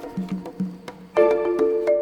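Background music: a light, rhythmic tune on mallet percussion, with short woody taps keeping the beat.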